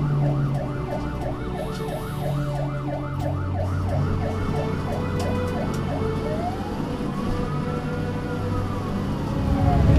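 Fire engine siren on a fast yelp, about three rise-and-fall cycles a second. About six seconds in it switches to a slow wail that rises and then falls. The vehicle's engine runs steadily underneath.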